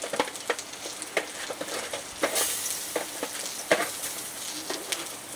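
Sizzling and crackling on a gas barbecue grill, with scattered sharp clicks and knocks as vegetables are turned over in an aluminium foil tray. The loudest click comes a little before four seconds in.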